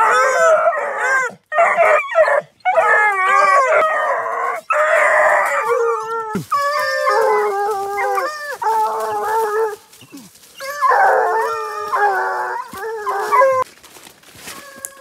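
Several young hunting hound puppies howling and yelping in overlapping cries, first at a caged rabbit. After a cut about six seconds in, they are giving tongue (baying) on a scent trail in woodland, with short breaks near the end.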